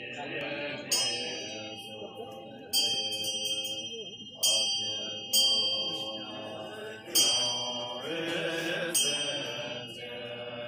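Buddhist monks chanting a low, steady liturgy while a metal ritual bell is struck six times, about every one to two seconds, each strike ringing out and fading.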